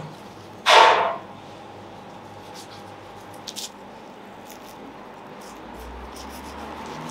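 Raw leg of lamb being handled and trimmed on a metal butcher's table: a loud, short burst of noise about a second in as the meat is pressed and moved, then faint clicks and rustles as a knife peels the fat away.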